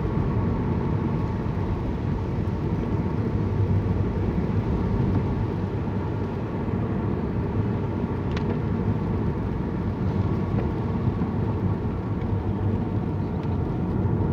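Steady car engine and road noise heard from inside the cabin while driving, a low even rumble.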